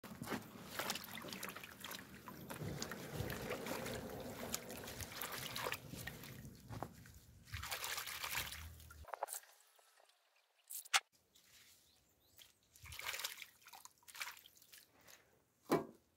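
Water in a plastic bucket as freshly picked spring greens are washed by hand: a steady rush of water for about nine seconds that stops abruptly, then quieter splashes and drips as the hands swish the greens about.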